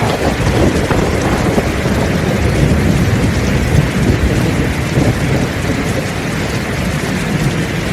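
Heavy rain pouring steadily, with a low rolling rumble of thunder that swells at the start and fades after about five seconds.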